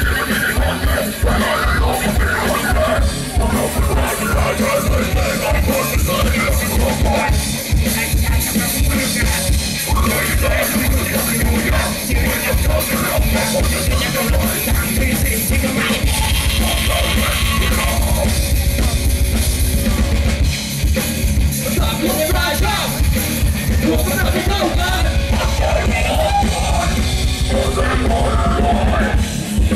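Metal band playing live: distorted electric guitar, bass and a drum kit, with shouted vocals over it. The kick drum pounds in rapid runs in the second half.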